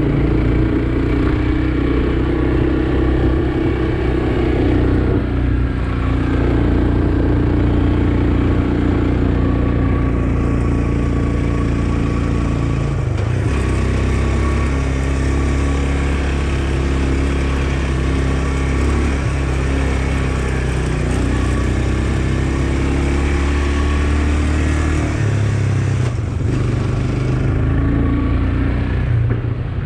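Quad bike (ATV) engine running under way on a dirt road, heard from on board. The engine note shifts a few times as the ride goes on.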